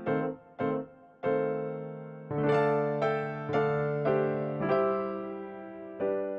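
Background music: a piano-like keyboard plays a slow melody of single struck notes, each left to ring and fade.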